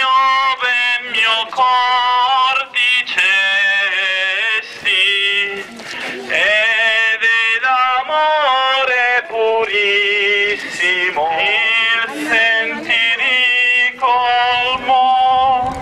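A man's voice singing a processional hymn in long, wavering phrases with short breaks between them, amplified over a horn loudspeaker.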